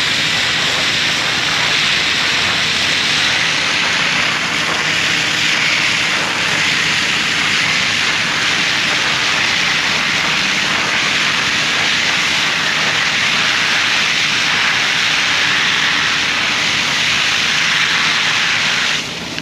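Steady, loud rush of water with a constant low hum underneath, unbroken until it drops off near the end.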